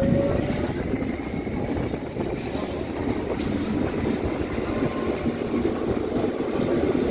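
Berlin U-Bahn class H (H01) train heard from inside the carriage as it moves off. A thin rising whine from the traction motors fades about a second in, under a steady rumble of the wheels on the rails that grows a little louder near the end.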